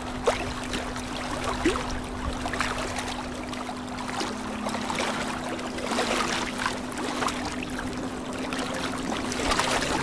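Aquarium aeration: air bubbling up from an airstone and sponge filters and breaking at the water surface, a continuous trickling bubble with many small pops, over a steady low hum.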